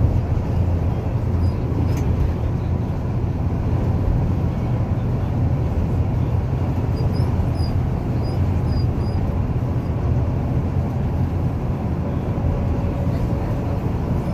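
Train running with a steady, even rumble and no change in pace.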